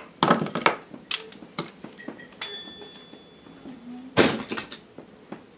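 Capehart TC-20 tube radio being switched on for its first test after recapping: a few clicks and knocks, a faint steady whistle about halfway through, then a sharp burst of noise with a brief high whistle about four seconds in as the set warms up.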